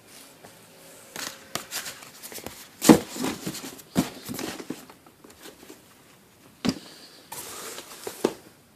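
Sneaker packaging being handled: irregular rustling and crinkling, with several sharp knocks. The loudest knock comes about three seconds in.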